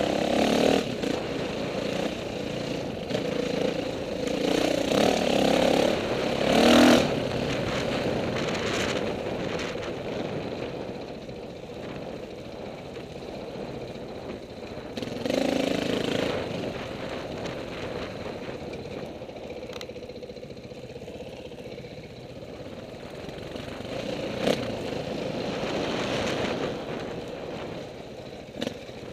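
KTM 450 dirt bike's single-cylinder four-stroke engine running under varying throttle while being ridden, picking up in surges near the start, about six seconds in and around the middle, and easing to a lower drone between. A sharp click sounds once, late on.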